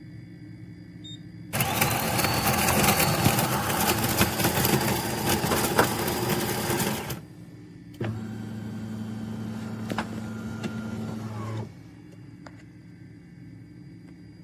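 De'Longhi Rivelia automatic espresso machine's built-in grinder grinding coffee beans, a dense crackling whir for about five seconds that stops suddenly. About a second later a lower, steady motor hum runs for almost four seconds and cuts off.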